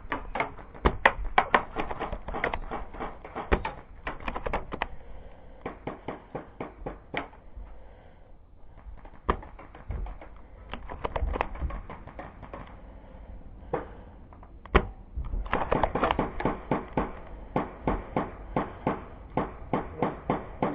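Airsoft gunfire: rapid trains of sharp clicks and snaps, about five a second, coming in bursts of a few seconds with short pauses between them. There are two louder single snaps, about nine and fifteen seconds in.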